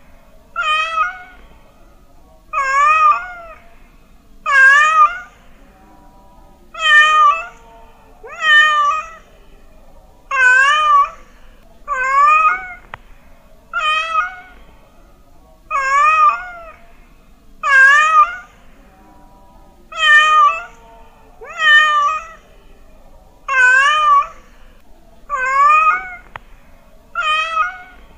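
Domestic cat meowing over and over, about fifteen short meows at an even pace of one every couple of seconds, each bending in pitch.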